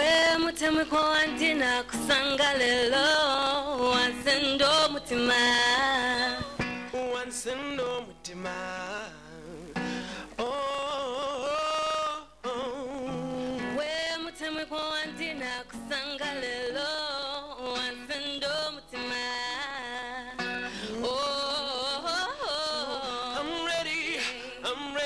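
Background music: a song with a sung melody over instrumental accompaniment, its long notes held with a wavering vibrato.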